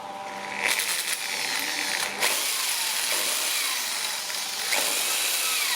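A power tool running on wood, starting about a second in, with a brief break near the two-second mark and a wavering whine toward the end.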